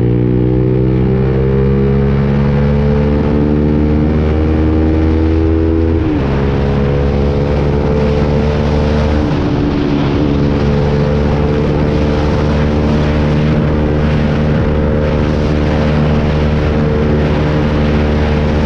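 Lexmoto Viper 125 motorcycle engine under way, its pitch rising slowly, then dropping suddenly about six seconds in and shifting again about three seconds later before holding steady. Wind rush runs under the engine sound.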